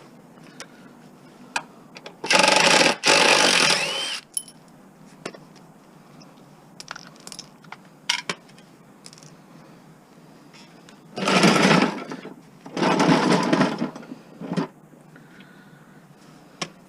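A power driver run in short bursts, two about a second each near the start and two more about two thirds of the way through, loosening fasteners on a mower, with light metal clicks and clinks between.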